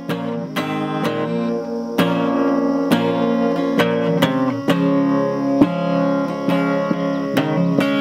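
Background music: strummed acoustic guitar chords in a steady rhythm, with no singing.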